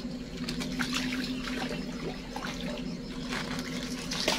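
A hooked fish splashing at the lake surface as it is played in, a run of small splashes ending in a sharp louder splash near the end, over a steady low hum.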